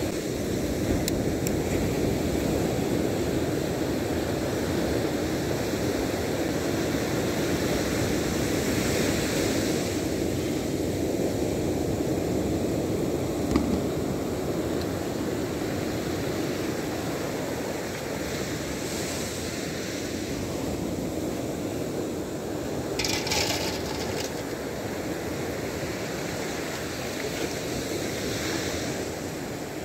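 Surf breaking and washing on a sandy beach, a steady rushing noise, with a sharp click about halfway through and a brief hiss about two-thirds through.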